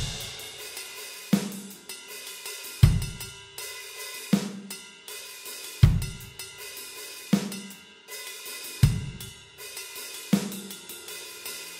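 A slow drum beat from a music track: kick drum and snare alternating about every one and a half seconds under a steady wash of cymbals and hi-hat.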